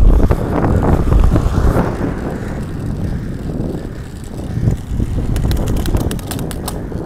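Wind buffeting the microphone over the rumble of a road bike's tyres on tarmac, heaviest in the first couple of seconds, with a run of sharp clicks near the end.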